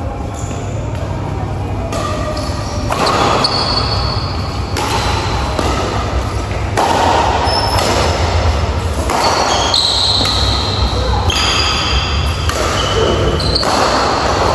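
Badminton rally: rackets striking the shuttlecock again and again, with the players' shoes squeaking on the court floor, echoing in a large hall over a steady low hum.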